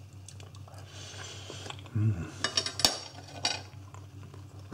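Metal fork clinking and scraping against a ceramic dinner plate: a run of light clicks with one sharper clink about three seconds in, as the fork is set down on the plate.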